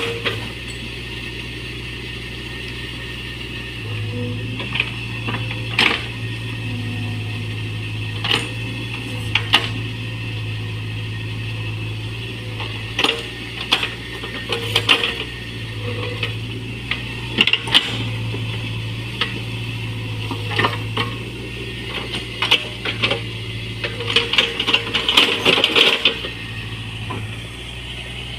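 Mini excavator engine running steadily, getting louder in stretches as it works under load, with repeated sharp metallic clanks and rattles while it digs.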